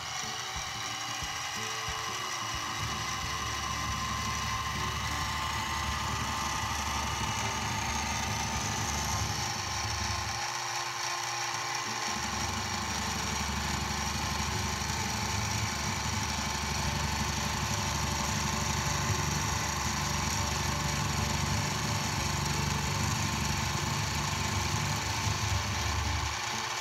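Harbor Freight 44991 mini mill's spindle motor running steadily while a 1/4-inch carbide end mill makes a hand-fed conventional cut, about 1/16 inch deep, through aluminium. The low hum drops out for a second or so about ten seconds in.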